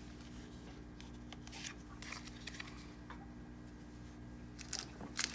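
Faint rustles and light taps of trading cards being handled and laid down on a playmat, with a few louder rustles near the end, over a steady faint hum.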